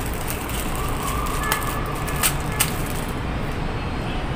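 Clear plastic accessory bag rustling and three sharp clicks in the middle as a black plastic action-camera mount is taken out of it and handled, over a steady low background rumble.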